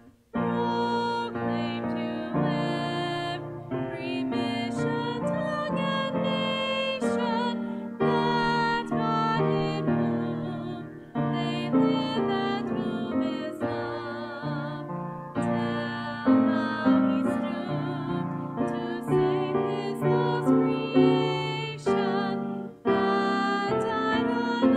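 A woman singing a hymn with vibrato, accompanied by piano, with the music starting again after a brief break right at the start.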